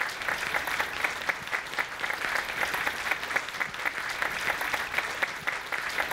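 A seated audience applauding, many people clapping steadily.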